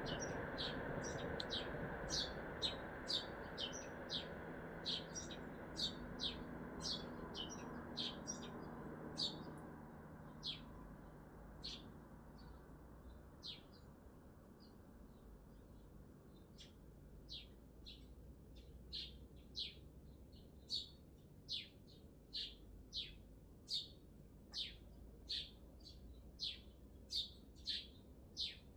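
A small bird calling with short, sharp chirps over and over, about one to two a second, over the steady hum of city traffic that fades about ten seconds in.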